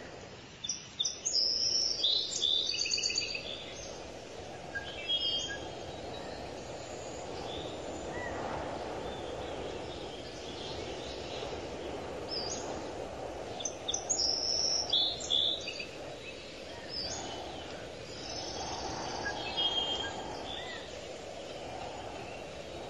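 Birds chirping in quick runs of high notes, loudest about a second in and again about fourteen seconds in, over steady low background noise.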